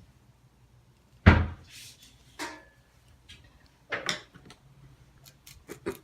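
A single loud knock about a second in, followed by fainter rustles and several short clicks of handling as the hair is worked by hand.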